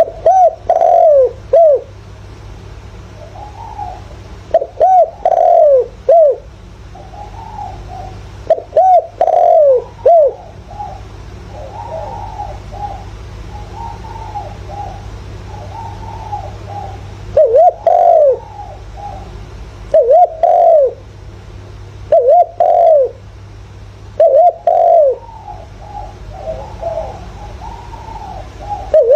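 Spotted dove cooing: loud phrases of two to four falling coos, repeated every few seconds, with fainter cooing filling the longer gap in the middle. A low steady hum runs underneath.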